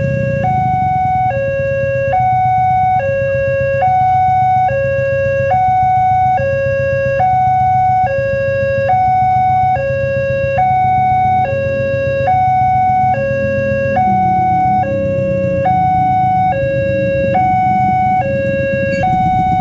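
Railway level-crossing warning bell (genta) sounding its electronic two-tone alarm: a lower and a higher note alternate evenly, each held a little under a second, signalling that a train is about to pass. A low rumble runs underneath.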